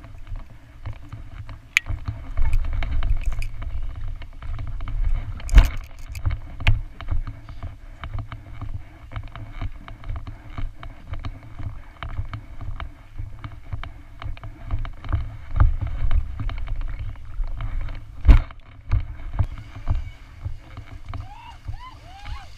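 Uneven low rumble of wind and movement noise on a body-mounted GoPro action camera, with a few sharp knocks, the loudest about five and a half seconds in and again near eighteen seconds.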